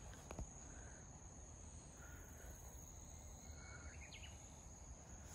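Near silence: faint rural outdoor ambience, a steady high-pitched hum with a few faint, short chirps.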